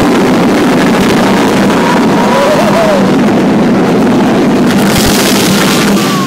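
Loud steady roar of wind buffeting the microphone and the steel roller coaster train rumbling along its track at speed, with a hum running underneath. The roar drops sharply near the end as the train slows.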